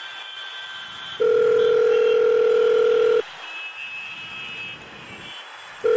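Phone ringback tone heard while an outgoing mobile call rings unanswered: a steady tone of about two seconds, a pause, then the tone again near the end.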